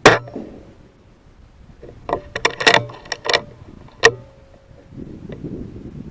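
A shot from a Weihrauch HW100 PCP air rifle, one sharp crack at the start. About two seconds later comes a quick run of metallic clicks and then one louder click near four seconds, the side lever being worked to chamber the next pellet.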